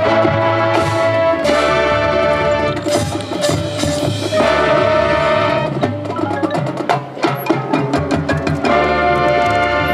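Marching band playing: brass holding loud chords over drums and front-ensemble percussion. About six seconds in the brass drops back and the percussion plays a run of sharp hits on its own, then the full band comes back in near the end.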